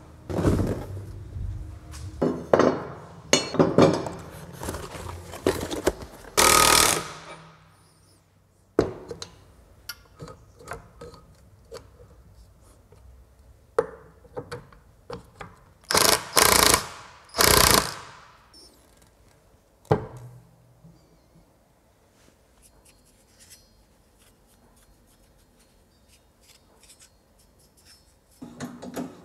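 Hand and power tools at work on a car's front suspension and brakes: scattered clanks and knocks, with short loud bursts of a power tool, one about six seconds in and three in quick succession in the middle. It goes quiet for the last stretch.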